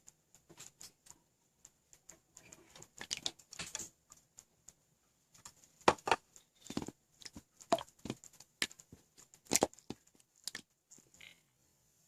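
Hands squishing and poking a homemade slime: irregular sticky clicks and short pops of trapped air, a few louder pops between them.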